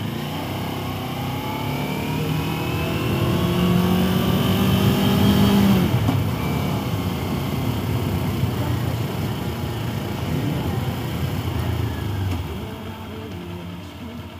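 Sport motorcycle engine, recorded at the rider's helmet, pulling up through the revs with a rising pitch for about six seconds, then the throttle closes and the pitch drops. Wind and road noise run underneath, and everything gets quieter about twelve seconds in as the bike slows.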